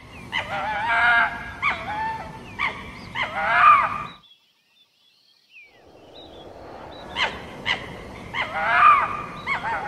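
Red fox calling: a run of short, wavering yelps and whines mixed with clicks. It is heard twice, with a silent gap of about a second and a half a little after the middle.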